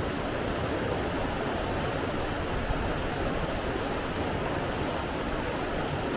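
Running water rushing steadily, an even unbroken noise.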